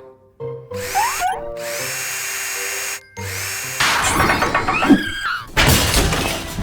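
Cartoon power-tool sound effects over background music: a drill whirs up into a steady whine that cuts off suddenly, then more tool clatter and a loud rushing burst near the end.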